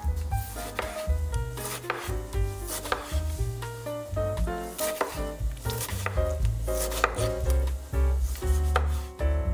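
Chef's knife cutting through a ripe tomato and striking a bamboo cutting board, a series of crisp knife strikes at an uneven pace, with light background music underneath.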